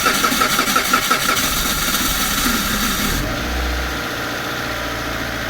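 A 2003 Mitsubishi Lancer ES four-cylinder engine being cranked over by its starter with a fast, even pulsing. About three seconds in it catches and settles into a steady idle. This is the first start after the fuel filter was replaced.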